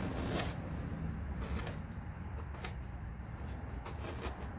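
A gloved hand rubbing and scraping the last of a vinyl sticker off a vehicle's painted body panel, in irregular scratchy strokes over a low steady rumble.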